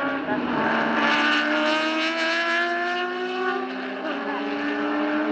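Nissan Fairlady Z432 race car's S20 twin-cam straight-six running hard under acceleration, its note climbing steadily in pitch as it passes with a second classic race car close behind. About four seconds in, the note breaks briefly and then climbs again.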